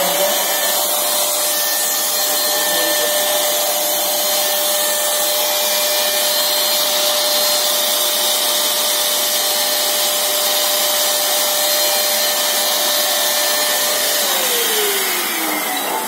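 Portable electric sanitizer spray machine running: its motor holds a steady high whine over rushing air as it sprays. About 14 seconds in it is switched off and the whine falls away as the motor winds down.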